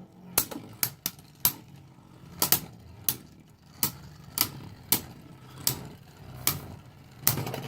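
Two Beyblade Burst Turbo tops, Vice Leopard and Silver-X Jormuntor, spinning in a plastic stadium and clashing, with a sharp click at each hit about every half second over a faint low whir of spinning.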